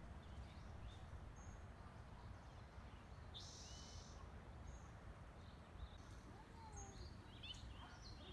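Quiet outdoor ambience with scattered short bird chirps and calls, several in quick succession near the end, over a faint low steady background noise.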